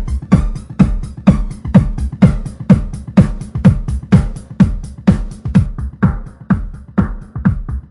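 Electronic dance music with a steady, heavy kick-drum beat about twice a second.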